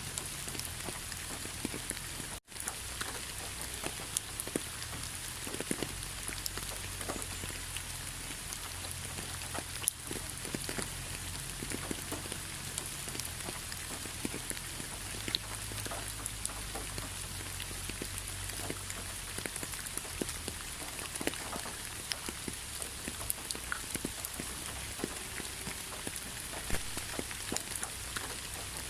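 Steady rainfall in a rainforest: an even hiss with many separate drops striking close by. The whole sound cuts out for a split second about two and a half seconds in.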